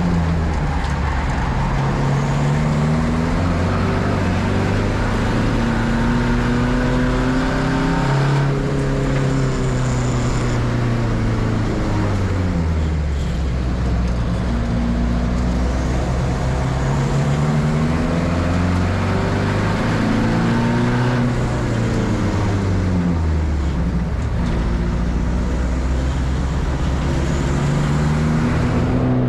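Racing car engine under hard driving: its pitch climbs over several seconds, drops sharply, and climbs again, over and over, as it accelerates, shifts and slows for corners.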